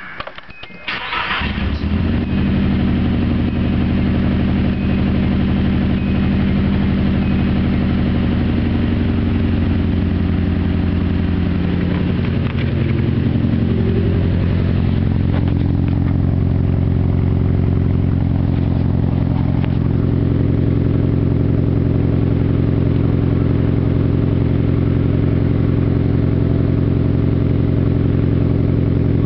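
Nissan SR20DET turbocharged four-cylinder engine cranked and catching within the first two seconds, then idling. Its idle wavers and dips about twelve seconds in before settling steady; the owner asks whether the uneven running is a misfire.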